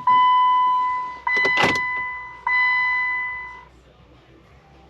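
Jeep Wrangler dashboard chime dinging, three pitched dings about a second apart, each fading, stopping after about three and a half seconds. Partway through, about a second and a half in, there is one short clunk, fitting the power door lock actuators.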